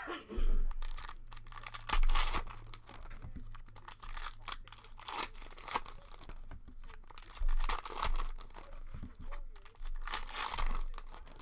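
Plastic wrapping of trading card packs being torn open and crinkled by hand, in irregular bursts.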